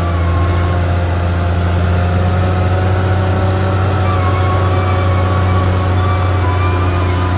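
Caterpillar D6R XL bulldozer's diesel engine running at a steady speed: a constant deep drone with fainter, level higher tones above it.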